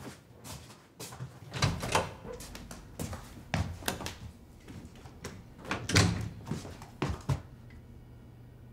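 A door being opened and handled: a string of sharp knocks and clatters, loudest about two seconds in and again near six seconds. After that, a low steady hum.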